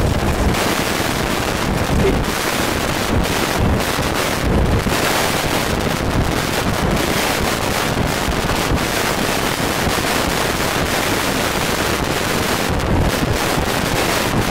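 Strong tornado inflow wind buffeting the microphone: a loud, steady rush with heavier low gusts every few seconds.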